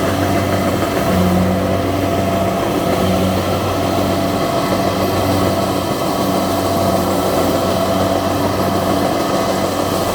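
Combine harvester running steadily: an engine hum at constant speed with the machinery's noise over it.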